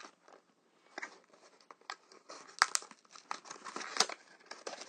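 Small cardboard treat box and its packaging opened by hand: irregular crinkling, rustling and tapping, with sharp clicks a little past halfway and again about four seconds in.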